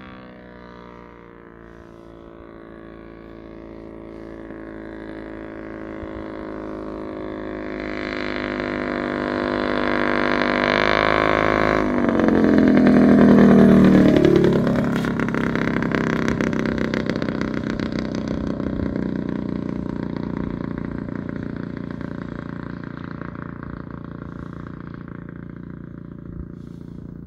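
Single-engine light aircraft's piston engine and propeller growing steadily louder as it approaches. It passes close about 13 s in with its pitch dropping, then fades as it moves away.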